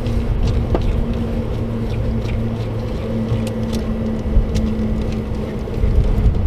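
Steady low machine hum with a held tone, and scattered light clicks and taps over it.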